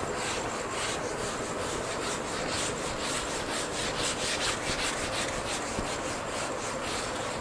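Handheld whiteboard eraser rubbing across a whiteboard in quick, repeated back-and-forth strokes, a dry rasping swish about three times a second.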